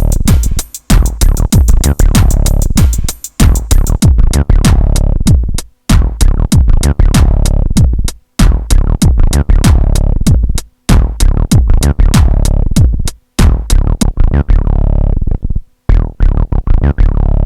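Electronic acid-techno jam: a drum machine pattern with a synth bassline, heavy in the low end. It runs in phrases of about two and a half seconds, each broken by a short silent drop, and the fast high hits thin out near the end.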